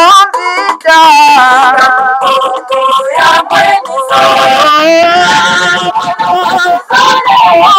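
Music with singing voices: a sung melody with wavering held notes.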